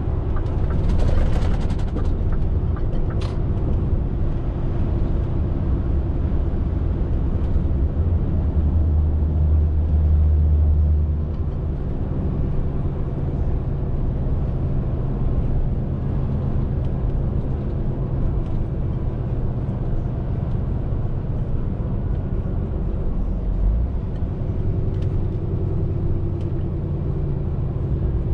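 Scania R450 lorry's six-cylinder diesel engine and road noise, a steady low drone while driving, which swells deeper and a little louder from about eight to eleven seconds in. There is a short hiss about a second in.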